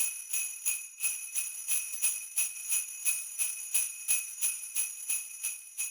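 Sleigh bells shaken in a steady rhythm, about three shakes a second, their jingling ringing on between shakes.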